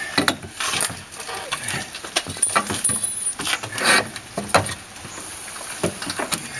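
Irregular knocks, clicks and scraping as an entry door unit is handled and worked into its opening, with no steady machine sound.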